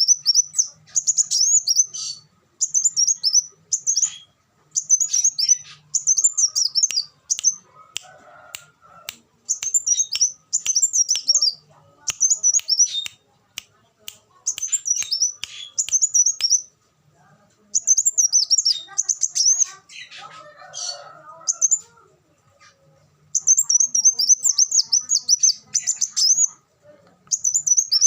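Kolibri wulung (sunbird) singing: rapid, high-pitched twittering phrases, each a second or two long, repeated again and again with short pauses between them.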